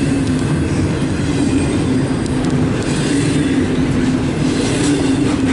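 Freight train of auto rack cars rolling past close by: a continuous rumble of steel wheels on the rails with a steady low hum.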